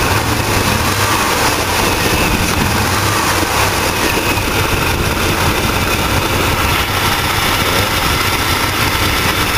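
Freshly rebuilt V6 engine of a Chevrolet S-10 Blazer idling steadily with the hood open. Its exhaust runs through a battered muffler that the owner says is farting and needs replacing.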